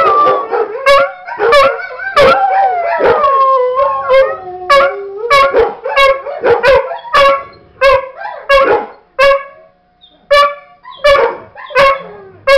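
A dog howling in long, gliding, falling notes for the first five seconds or so, over a steady run of dog barks played back from a video, about two barks a second, which carry on alone after the howl stops.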